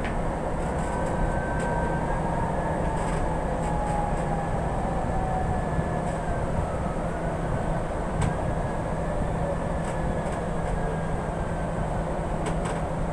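Interior of an MRT-3 metro train car in motion: steady rumble and rail noise, with a thin whine that slowly falls in pitch as the train slows, and a few faint clicks.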